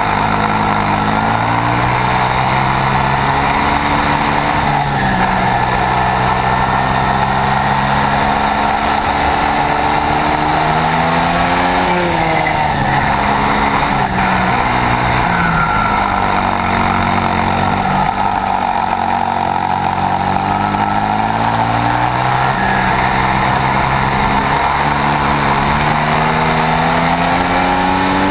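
Swissauto 250 two-stroke twin-cylinder kart engine, heard on board at racing speed. Its revs climb in short steps through the gears, fall away, and climb again several times.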